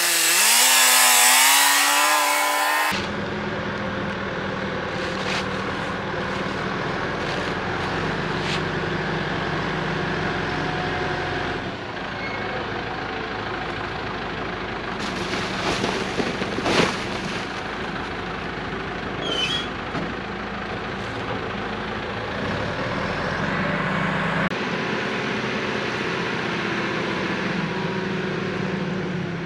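Caterpillar backhoe loader's diesel engine running steadily as the machine drives and works its boom and bucket, with a few sharp metal knocks about halfway through. For the first three seconds a loud rushing noise covers the engine as it rises in pitch, while the loader pushes through tall dry brush.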